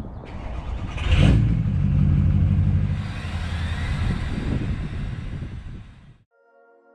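Tow vehicle's engine accelerating and running under load, with road and wind noise, towing a trailer. It cuts off abruptly a little after six seconds, and soft ambient music begins.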